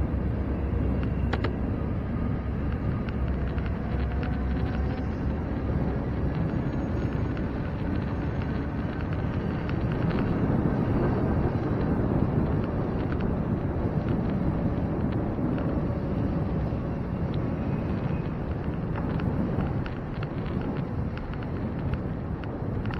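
Wind rushing over the microphone of a camera on a moving bicycle, mixed with road noise: a steady low rush that swells a little about halfway through and eases slightly near the end.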